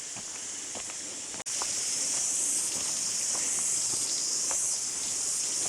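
A chorus of insects making a steady, high-pitched drone, with faint footsteps on the trail underneath. The sound drops out briefly about a second and a half in and comes back louder.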